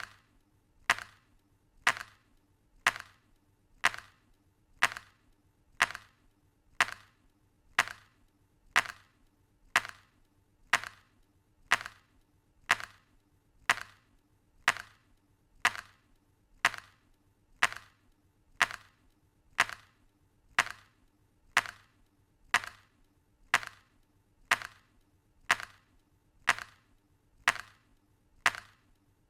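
An old early-1900s clock ticking steadily, about one sharp tick a second, each followed by a faint second click.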